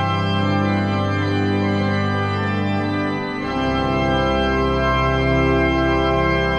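Pipe organ music played on a Hauptwerk virtual pipe organ: full, sustained chords that change about halfway through, where the pedal bass drops to a deeper note.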